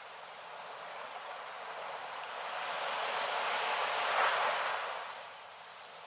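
Small sea waves washing up onto a sandy beach: the hiss of the surf swells, peaks about four seconds in, then dies away as the wash spreads out.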